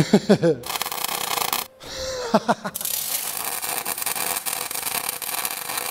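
Electric welding arc crackling as steel pedal mounts are tack-welded: a short burst about half a second in, then after a brief pause a steady run of crackle from about three seconds on.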